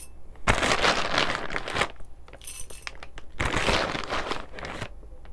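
Coffee beans poured into a small metal dosing cup, rattling and clinking against the metal in two pours of about a second and a half each, with a short rustle between them.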